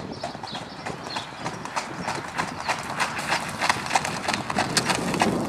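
A horse trotting in hand on a hard dirt track: a steady, even clip-clop of hoofbeats that grows louder as the horse approaches.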